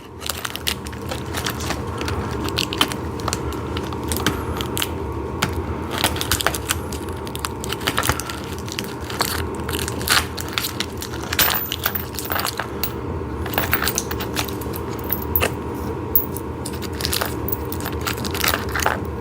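Plastic hardware bag crinkling and crackling as it is opened and handled, with irregular sharp clicks throughout.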